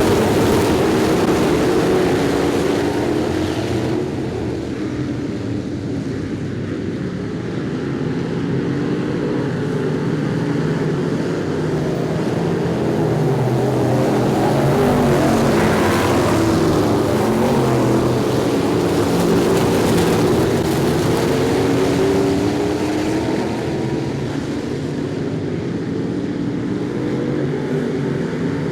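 Several dirt-track street stock race cars running at speed together, their engines overlapping and rising and falling in pitch as they go through the turns. The pack grows louder about halfway through as the cars pass close by.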